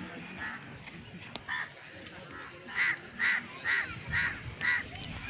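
A crow cawing five times in a row, about two caws a second, starting about three seconds in.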